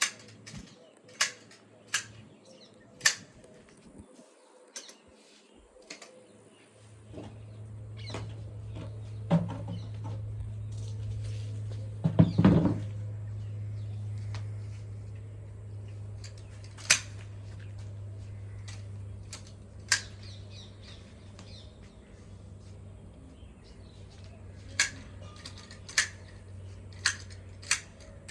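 Hand shears snipping through shrub branches: single sharp snips at uneven intervals, with a louder cluster of cuts near the middle. A steady low hum starts about a quarter of the way in.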